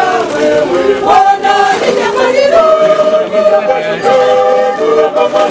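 A group of mourners singing together, several voices holding notes and moving from note to note.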